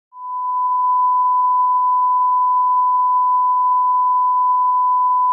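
Bars-and-tone test signal: a single steady, unbroken beep at one fixed pitch that swells in over the first half second.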